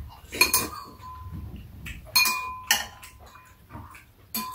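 Metal spoons clinking against dishes: five sharp clinks, each with a short ringing tone, two close together near the start, two more about two seconds in, and one near the end.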